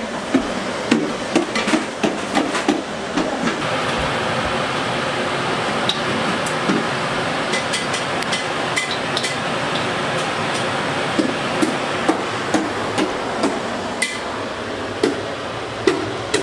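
Metal cookware handling: a wire blanching basket and pots clinking and knocking, with sharp clicks every second or so, over a steady rushing noise that builds from about three seconds in.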